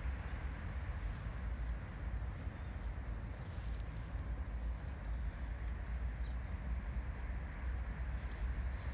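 Steady low rumble with a soft hiss: outdoor background noise on a handheld phone's microphone, with no distinct event.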